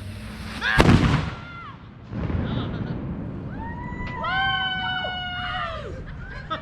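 A single loud blast from a homemade cannon about a second in, followed by several people whooping and yelling in long held calls.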